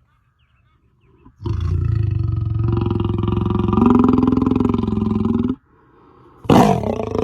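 Lion roaring: one long, loud call of about four seconds, then a second one starting sharply near the end.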